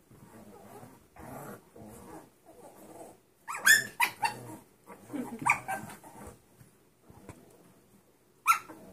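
Six-week-old Dachshund-Chihuahua-Pug mix puppies play-fighting: low growling, with sharp high yips about three and a half seconds in, again near six seconds, and once more near the end.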